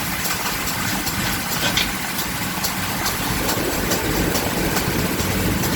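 Portable generator engine running steadily while a tire-changing machine turns the wheel, working the tire's second bead over the rim lip. A quick, light ticking runs over the hum.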